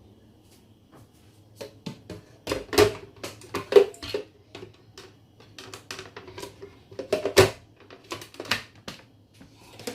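An irregular run of sharp clicks and knocks from hard objects being handled and set down. The loudest knocks come about three, four and seven and a half seconds in.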